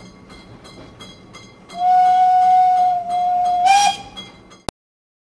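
Steam locomotive whistle blowing two steady blasts, a long one and then a shorter one, over a faint rhythmic beat of about three strokes a second. The second blast rises in pitch at its end with a burst of hiss, and then the sound cuts off abruptly.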